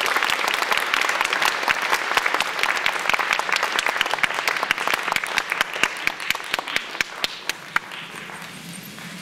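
Audience applauding at the end of a scene. The clapping thins to a few scattered claps and dies away near the end.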